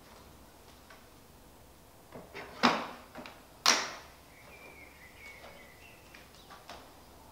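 Two sharp clacks about a second apart, with a few fainter taps, as the aluminium frame and fittings of a Mackworth Essentials 130 shower/commode chair are handled.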